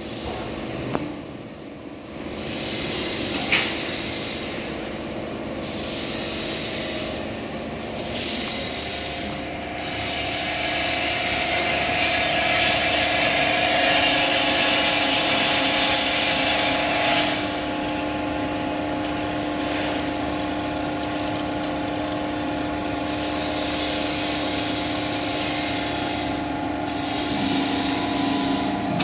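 Spindle motor of a CNC plasma table's drilling head running with a steady whine while the bit drills into steel plate, with a rasping cutting noise that comes and goes.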